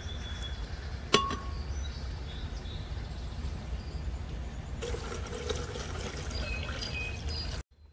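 Water poured into a glass blender jar, a splashing hiss that starts about five seconds in and cuts off suddenly near the end. A single sharp knock sounds about a second in, over a steady low rumble.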